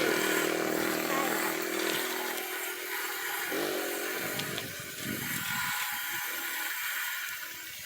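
A small engine, like a motorcycle's, runs steadily and fades away over the first two seconds. After that there is a steady hiss, with faint voices about halfway through.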